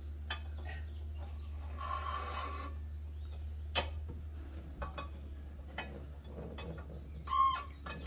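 Hand tools and metal parts being handled: scattered clicks and clinks, a rasping scrape about two seconds in and a shorter one near the end, over a steady low hum.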